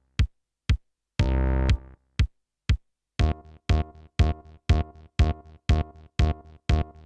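Electronic background music: a sparse drum-machine break with a few isolated hits and a short synth chord, then a steady beat of about two hits a second building back toward the full track.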